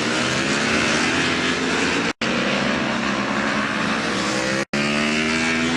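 Racing motorcycle engines running at high revs, their pitch rising and falling. The sound cuts off abruptly for an instant twice.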